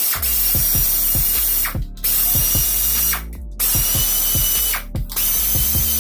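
Pneumatic wrench running in repeated bursts of about a second each with short pauses between, a loud air hiss over a rapid clicking, as fasteners are worked loose during an engine teardown.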